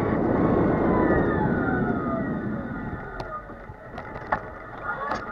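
Mobility scooter running along a street: a whine that falls in pitch over a rushing road and wind noise, which fades over the first couple of seconds. A few sharp clicks and rattles follow later on.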